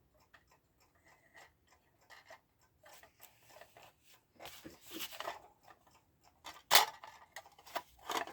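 Small metal clock parts being handled and fitted together: scattered light clicks and scrapes as the clock case and movement are fitted, with a sharper click about seven seconds in.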